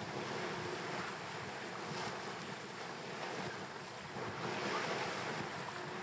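Wind and waves rushing past a wooden sailboat beating to windward, with wind buffeting the microphone; a steady wash with no distinct events.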